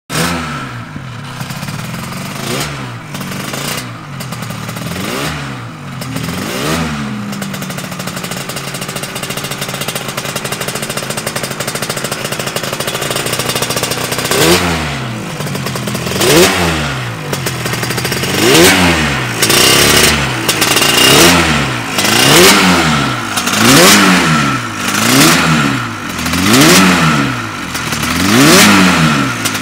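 Yamaha TZ350 two-stroke twin racing engine running and being revved in short throttle blips. A few blips, then a steady idle for several seconds in the middle, then louder, regular blips about every second and a half.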